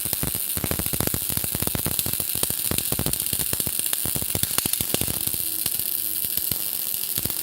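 MIG welding arc on mild steel plate, a dense, irregular sizzling crackle with strong hiss. A steady hum joins in about five seconds in.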